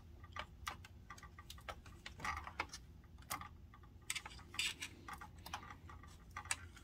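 Irregular light clicks and taps of a small screwdriver and fingers working a circuit board inside an opened CD player, a few louder ticks among them, over a faint low hum.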